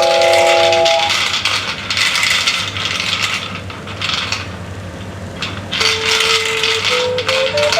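Layered soundscape: a noisy rattling texture that surges and fades irregularly. A cluster of sustained recorder notes cuts off about a second in. Near the end a recorder holds one note, then steps upward.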